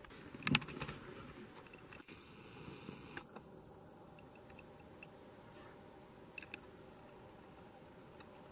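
Faint steady hiss broken by a few sharp clicks of a hand-held camera being handled: the loudest about half a second in, another near three seconds, and two close together about six and a half seconds in.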